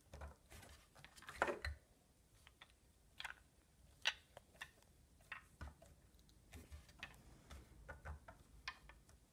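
Faint, irregular clicks and scrapes of a screwdriver tip working in a dirt-clogged screw head on a Kirby Heritage II vacuum's metal fan case.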